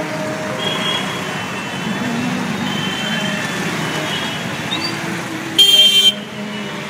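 Dense, congested street traffic heard from a tuk-tuk: engines running with short horn toots here and there, and one loud horn blast about five and a half seconds in that lasts half a second.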